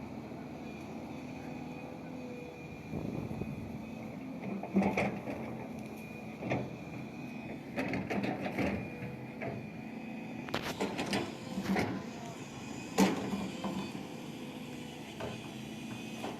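Volvo 220 excavator running steadily with a constant whine, while clusters of sharp clanks and knocks come from the machine working through the middle of the stretch. The single loudest knock comes near the end.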